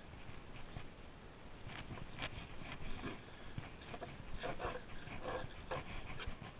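Fillet knife skinning a rockfish fillet on a plastic cutting board, the blade scraping along the board in a series of short strokes as it is worked between skin and flesh.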